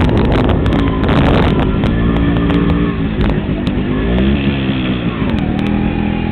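Yamaha DX 100cc motorcycle engine running underway, heard from on the bike. Its pitch rises and falls about four to five seconds in as the rider eases off and picks up again.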